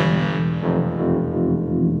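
80s-style synthwave music with distorted, effect-heavy tones. Its bright upper part fades out about half a second in, leaving lower held tones over a steady pulsing bass.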